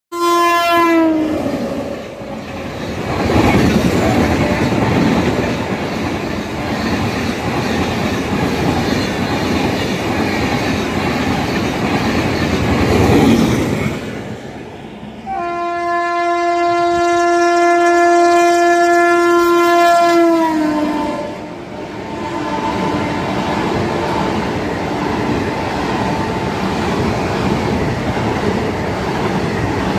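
Indian Railways WAP-7 electric locomotive hauling passenger trains past at high speed. A horn sounds briefly at the start and again for about five seconds from about fifteen seconds in, its pitch dropping each time as it passes. In between and afterwards comes the steady rushing rumble and clickety-clack of coaches' wheels on the rails.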